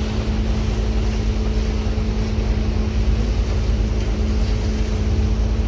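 Motorboat engine running steadily under way, a low drone with a constant hum, with wind and water rushing past.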